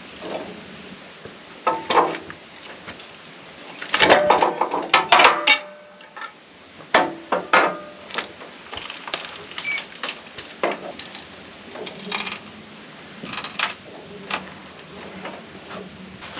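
Irregular metallic clanks and knocks from handling a spruce log on a sawmill bed, with a dense burst of clattering about four seconds in.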